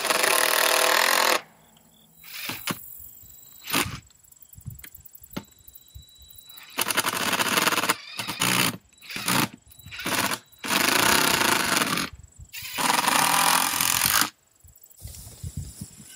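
Power impact driver running screws into wood to mount a gate latch. It runs in a series of bursts: four longer runs of about one to one and a half seconds each, with several short blips and taps between them.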